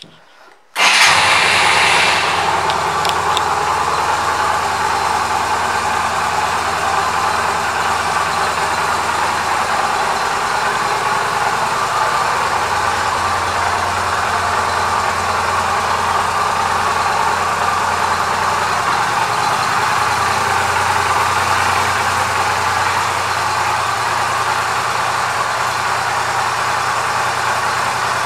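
Yamaha V Star 250's air-cooled V-twin engine starting abruptly about a second in, then idling steadily.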